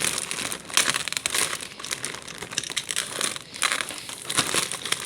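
Packaging crinkling and rustling in irregular bursts as a parcel is unwrapped by hand.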